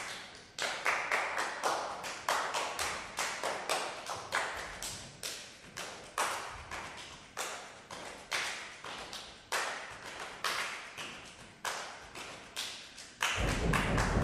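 Sharp percussive taps and claps in an uneven rhythm, about three a second, each ringing out in the hall. About a second before the end a much louder, sustained sound with a deep low end comes in.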